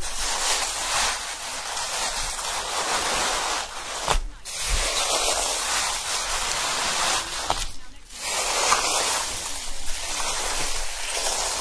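Ocean surf washing in and out in long swells, each surge rising to a rushing hiss and falling away about every four seconds.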